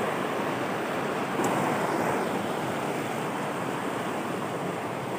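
Swollen, muddy river in flood rushing over rocks: a steady rush of fast floodwater.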